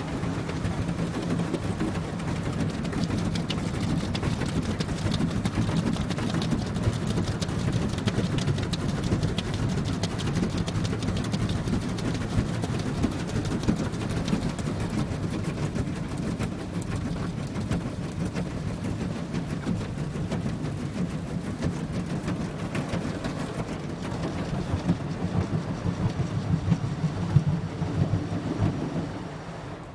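Automatic car wash machine working over a car, heard from inside the cabin: a steady rumbling rush of noise, with a few louder knocks late on, that falls away suddenly at the very end.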